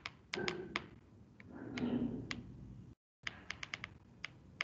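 Irregular sharp clicks and taps, a few close together, with a faint muffled swell of sound about two seconds in. The audio cuts out completely for a moment near the middle.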